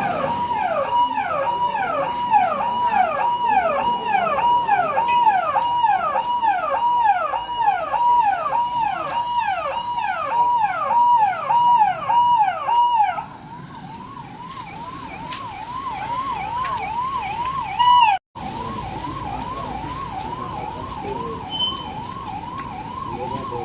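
Emergency vehicle sirens sounding a fast repeating yelp, about two sweeps a second. Two sirens overlap until about halfway, when one stops and a quieter one carries on, with a brief dropout near the end.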